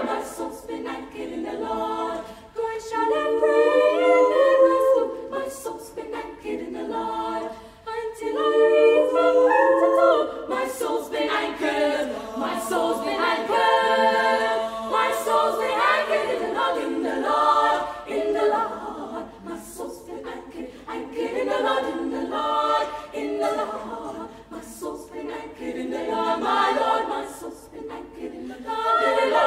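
Girls' choir singing a cappella in harmony, in sung phrases with brief breaks between them.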